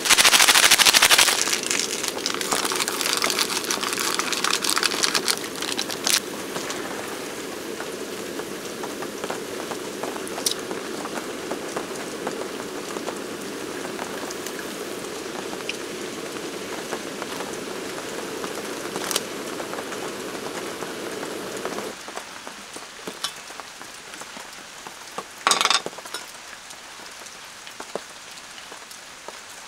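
Ramyeon broth boiling in a round griddle pan over a camp burner, a steady bubbling hiss under steady rain, with a few sharp clinks of utensils against the pan. The boiling sound drops away about three-quarters of the way through, leaving the rain.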